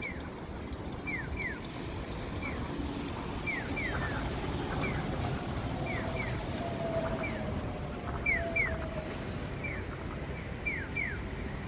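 Japanese electronic pedestrian-crossing signal chirping the bird-like 'piyo' call, one speaker giving a single chirp and another answering with a double chirp, alternating at a steady pace to show that the walk signal is on. Street traffic runs underneath, with a faint falling whine in the middle.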